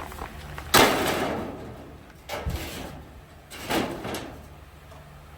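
Sheet-metal clangs: one loud hit a little under a second in that rings and fades, then weaker knocks about two and a half and four seconds in.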